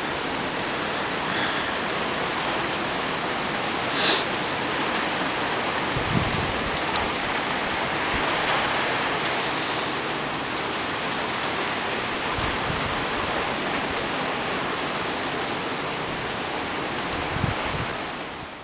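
Steady hiss of rain and wind from the trailing weather of a hurricane, with gusts buffeting the microphone a few times and a short tick about four seconds in.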